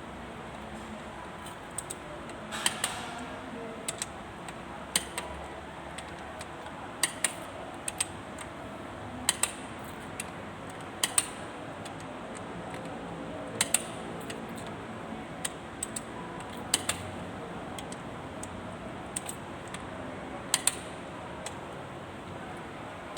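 Metal hand tools clinking and clicking against engine parts: sharp, separate clicks every second or two, often in quick pairs, over a steady low background.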